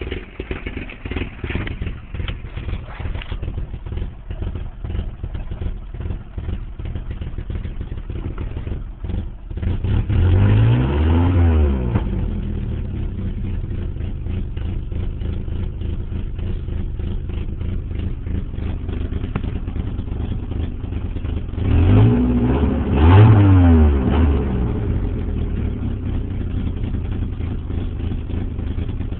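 1989 Nissan 240SX's 2.4-litre four-cylinder engine idling roughly with an uneven, stumbling beat. It is revved up and back down once about a third of the way in, then blipped twice in quick succession later on.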